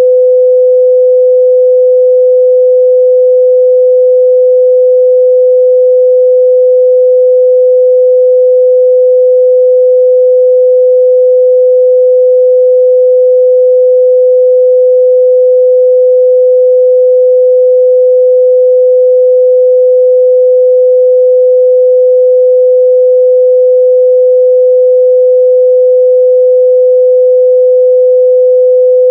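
A steady, loud 505 Hz sine-wave test tone, one pure unchanging pitch.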